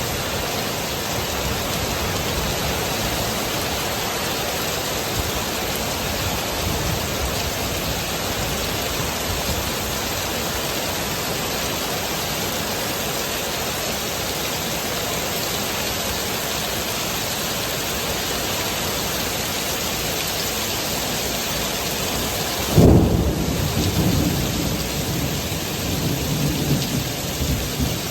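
Heavy rain pouring steadily. About 23 seconds in comes a sudden loud clap of thunder, followed by uneven rumbling thunder.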